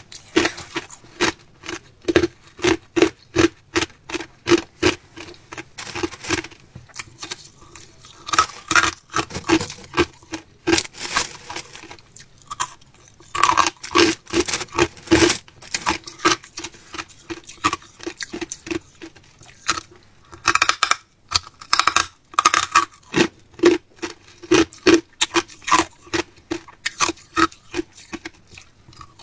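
Hard clear ice being crunched between the teeth: a rapid, uneven run of sharp cracking crunches, about two to three a second, broken by a few short pauses.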